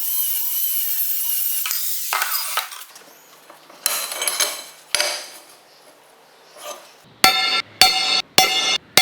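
A power tool cutting steel C-channel, running steadily and stopping about two seconds in, followed by a few light knocks and clinks of metal being handled. Near the end, a run of loud, ringing bursts that start and stop abruptly.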